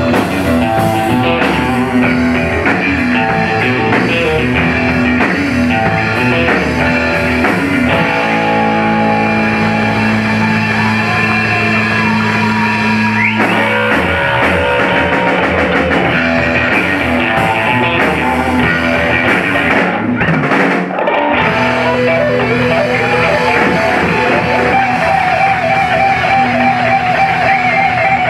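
Live rock band playing an instrumental passage, electric guitar to the fore over drum kit, bass and keyboards, with a held chord about eight seconds in and the bass dropping out briefly around twenty seconds in.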